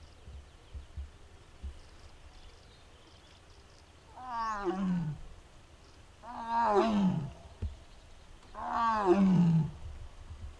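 Amur tiger calling three times, each call about a second long and falling in pitch.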